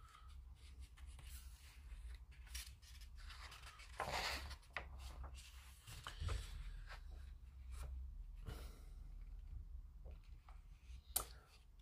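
Faint rustling of a paper instruction booklet as a page is turned and pressed flat by hand, with one louder swish of the page about four seconds in and a short sharp click near the end.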